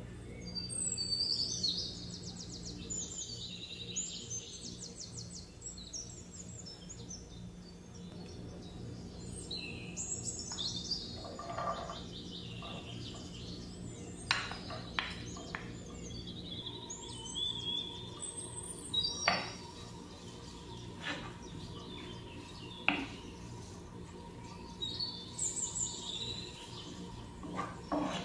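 Birds chirping in short clusters of quick high notes every several seconds, over a steady low hum. In the middle come several sharp knocks of a wooden spatula and plate against a granite-coated frying pan as chopped onion goes in and is stirred.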